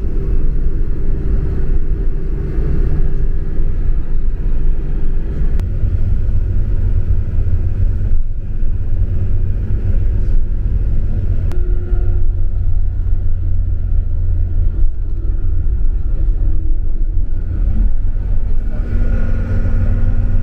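Bus engine and road noise heard from inside the coach cabin while it drives along the highway: a steady, loud low rumble.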